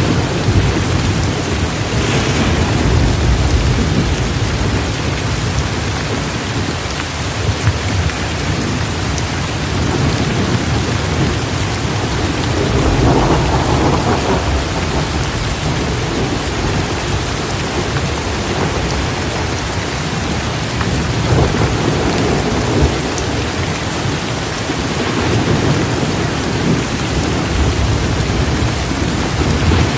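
Steady heavy rain with rolls of thunder rumbling in and out, swelling several times.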